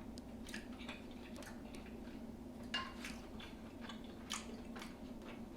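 A person chewing and smacking close to the microphone while eating seafood boil, with scattered sharp wet clicks, two of them louder, one near the middle and one later on. A steady low hum runs underneath.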